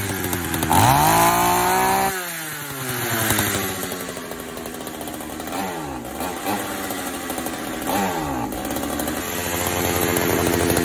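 Pioneer P41 66 cc two-stroke chainsaw engine running on a freshly rebuilt carburetor. It is revved up and let back down several times; the first rev climbs about a second in and drops off a second later. It bogs at full throttle, which the owner takes for a slightly lean mixture needing tuning.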